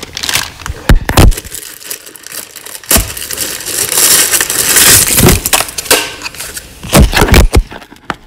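A clear plastic bag being ripped open and crinkled, with a long stretch of crackling about halfway through. Several sharp knocks from handling come near the start, at about three seconds and twice near the end.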